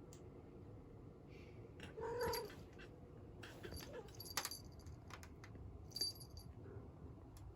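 Domestic cat meowing once, about two seconds in, calling to get a person's attention, followed by a few light clicks or taps.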